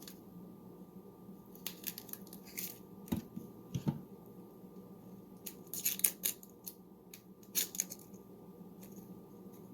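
Dry, papery onion skin being peeled and torn off by hand in short crinkly bursts, with two low knocks about three and four seconds in.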